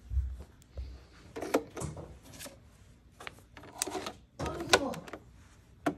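A scattered run of short, sharp clicks and knocks from handling a capsule coffee machine, its top lever opened and shut to load a capsule.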